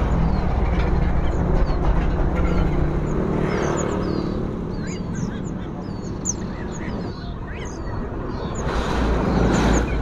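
Small caged songbirds giving many short, high chirps, scattered through most of the stretch, over a steady low rumble of a running engine.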